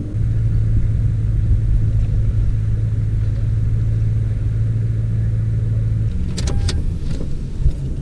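Pickup truck engine idling with a steady low hum; its note shifts about six seconds in. A few sharp clicks follow shortly after.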